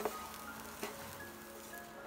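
Wooden spatulas stirring and tossing fried rice in a nonstick pan, with a couple of light knocks of wood on the pan, under soft background music.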